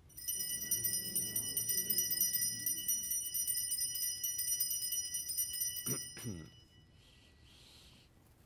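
Altar bells (a cluster of small Sanctus bells) shaken in a rapid, continuous high jingle for about six seconds, then stopping. At Mass this ringing marks the elevation of the consecrated host.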